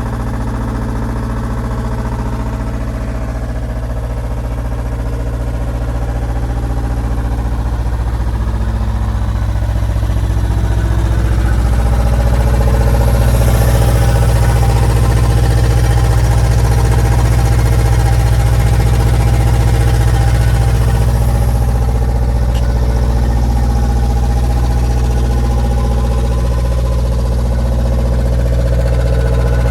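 Atlas Copco XAS 57 DD portable compressor running on its two-cylinder Deutz D2011L02 diesel engine, a steady low engine drone. It grows louder and deeper over the first dozen seconds, then holds steady.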